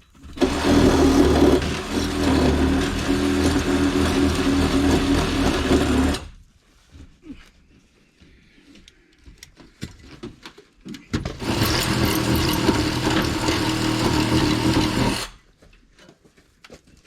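A handheld power tool runs twice, for about six seconds and then, after a pause with a few light knocks, for about four seconds, cutting into a mobile home's bottom wall plate.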